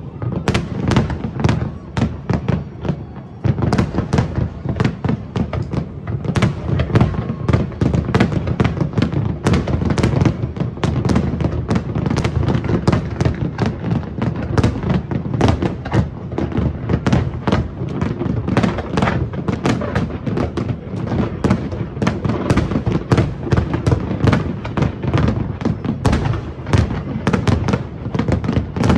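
Large fireworks display: a dense, continuous barrage of shell bursts and crackling over a heavy low rumble, with a slight lull about three seconds in.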